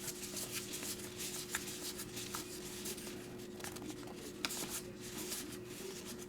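Trading cards being flipped and slid against one another by hand: a run of quick papery rustles and light clicks, over a faint steady hum.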